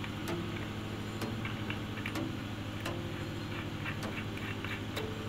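Scattered small metallic clicks and taps as a nut is threaded by hand onto the blade-assembly shaft inside a stainless-steel mixer grinder jar, over a steady low hum.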